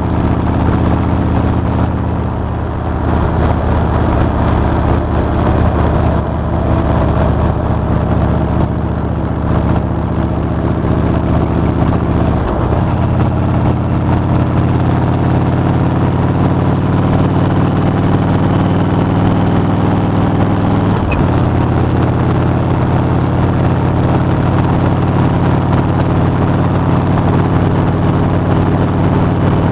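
Motorcycle engine running steadily at road speed over a constant rush of noise, the engine note breaking briefly twice, about twelve and twenty-one seconds in.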